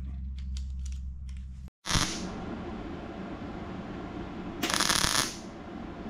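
MIG welder laying two tack welds on sheet steel: a short burst about two seconds in and a longer one of under a second near the end. It is tacking a patch into the shaved door-handle hole of a 1948 Chevrolet's rear door.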